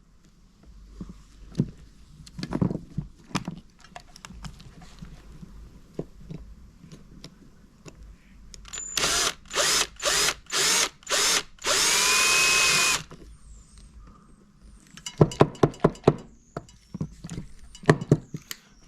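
Power drill run in five short bursts and then one steady run of about a second, drilling out the rivets that hold a Jaguar XJS wiper stalk switch together. A run of light clicks and taps follows near the end.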